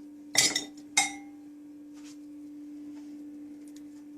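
Two clinks of a kitchen utensil against a pot, about half a second apart, the second ringing briefly. A steady low hum runs underneath.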